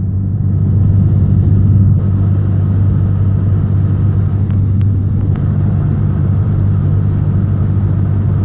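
Cessna 172N's four-cylinder Lycoming O-320 engine and propeller droning steadily in flight, heard inside the cabin, with a few faint clicks about halfway through.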